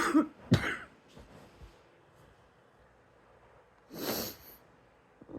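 A person coughing twice in quick succession, then a short noisy breath about four seconds in.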